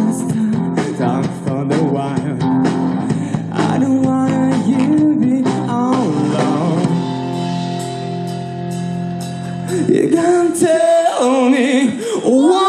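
Live rock band playing with drums and guitar. The drum strokes stop about seven seconds in under a held chord, and a wavering sung line comes in over it near the end.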